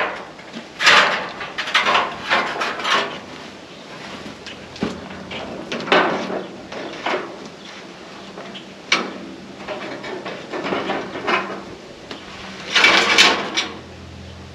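Long ribbed sheet-metal siding panel being handled and stood up against a wooden frame: irregular scraping and rattling of the thin metal, with a sharp knock about nine seconds in and the loudest rattle near the end.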